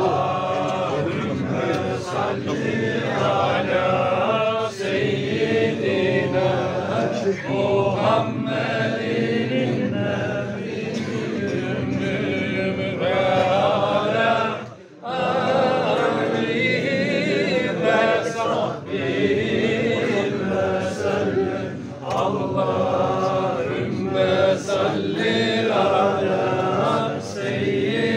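A group of men's voices chanting together, with a brief drop about halfway through.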